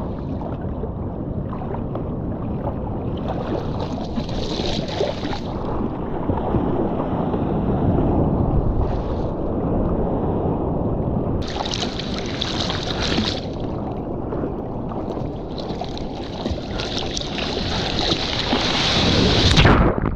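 Sea water rushing and splashing around a surfboard, with wind buffeting the microphone. Bursts of hiss come about four seconds in and again around twelve seconds, then build to the loudest churning near the end as whitewater washes over the board.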